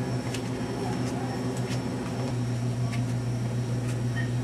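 A steady low electrical-sounding hum, with a few faint scattered ticks over it.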